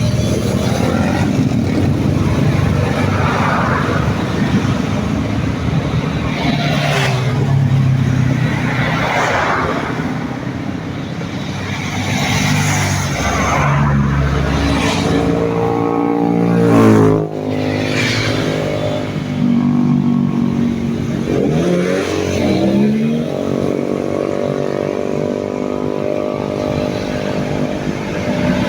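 Buses and other road traffic driving past one after another, each engine swelling and fading as it goes by. The loudest pass comes a little past halfway, its engine pitch dropping quickly as it goes by close.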